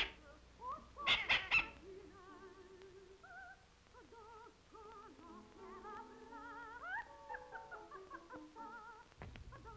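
Soft music of held, wavering notes at several pitches, entering about two seconds in, after a short loud cry about a second in.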